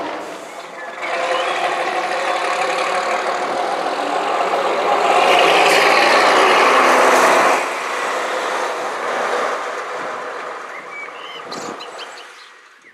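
Vintage double-decker bus driving past with its diesel engine running, loudest as it passes close by, then fading as it heads away.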